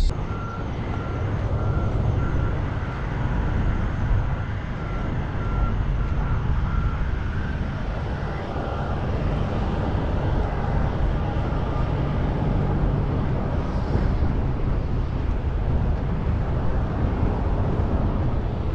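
Steady low rumble of diesel semi-truck engines running in a truck-stop lot, with a faint intermittent beeping through the first half.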